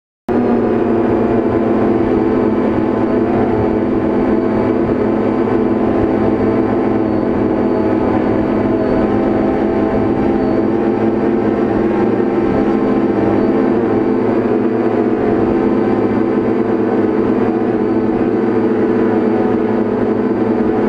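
Quadcopter drone's electric motors and propellers running steadily as it hovers and edges along, heard close up from its onboard camera: a steady hum of several tones that cuts in abruptly right at the start.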